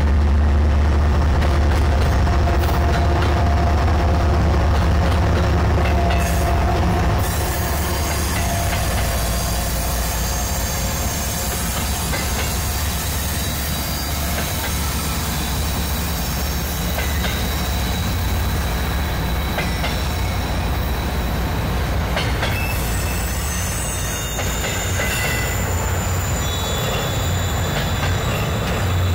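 A CN freight train's diesel locomotives running low and heavy across a steel girder bridge, followed by double-stack container cars rolling over it. From about seven seconds in, the engine drone eases and a steady rumble of wheels takes over, with high-pitched wheel squeal.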